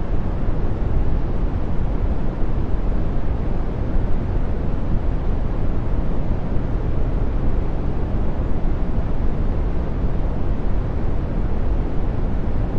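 Brown noise: steady, deep and soft random noise, strongest in the bass and falling away toward the treble, with no changes or events.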